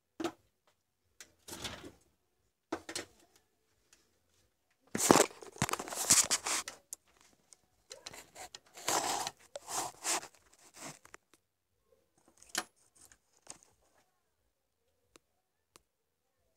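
Handling noises while working inside an opened UPS case: scattered clicks and small knocks from pliers, wires and the metal chassis, with two longer spells of rustling and rattling about five and nine seconds in, the first the loudest.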